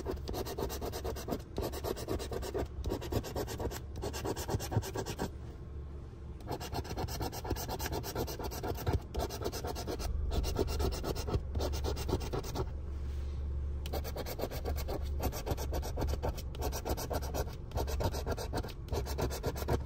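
A coin scraping the coating off a lottery scratch-off ticket in quick, rapid strokes, stopping briefly now and then between patches.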